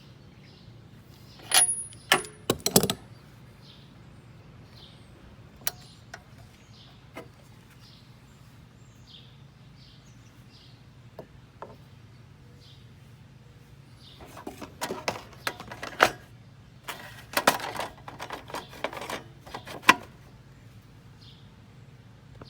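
Metal clinks, clicks and knocks of tools and parts being handled as a lawnmower's carburetor is put back together. There are a few sharp clanks a couple of seconds in, then a busier run of clicking and knocking in the second half.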